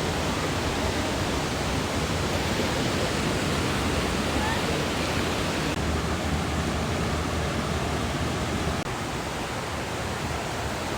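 Waterfall on a creek: steady rushing of falling water, slightly quieter about nine seconds in.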